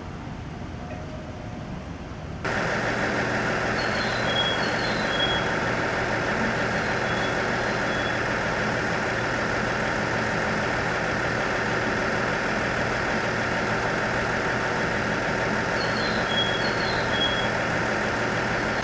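A quiet stretch, then about two and a half seconds in a steady engine idling, heavy and unchanging, joined now and then by faint short high chirps.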